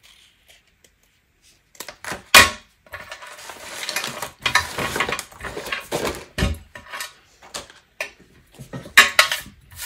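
Scissors and other craft items being set down and moved about on a glass craft mat: a sharp clack about two seconds in, then a few seconds of rustling and sliding, a knock in the middle and a cluster of clicks near the end.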